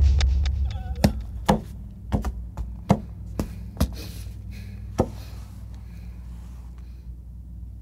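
A deep low boom dies away over the first second. Then come a string of sharp knocks, about eight at uneven spacing over some four seconds, over a low steady hum.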